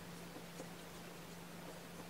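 Quiet room tone with a steady low hum and a few faint small ticks.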